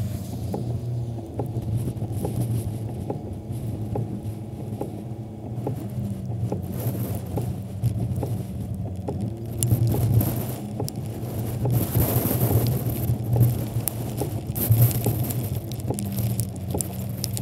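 Storm wind rushing on the microphone with a patter of raindrops, over a steady low hum; the wind gusts louder in the second half.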